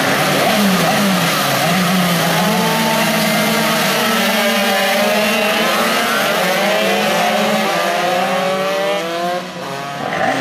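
Several small racing minibike engines revving and passing, their pitches rising and falling over one another, over a steadier engine hum.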